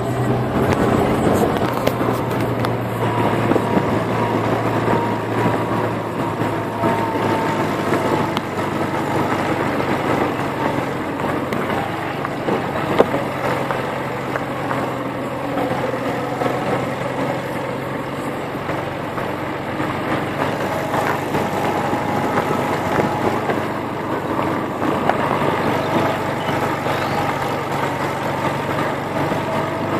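Car driving slowly along a dirt road, heard from inside the cabin: a steady engine hum under tyre and gravel noise, with one sharp knock about 13 seconds in.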